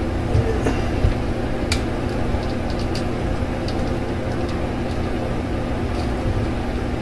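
Steady hum of a room fan running, with a few small plastic clicks as the locking tab on a spray-bottle nozzle is worked by hand.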